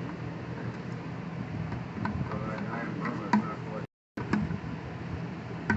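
Light clicks and taps of needle-nose pliers and fuel line being worked into a small plastic fuel tank, over a steady low hum. The sound cuts out briefly a little before four seconds in.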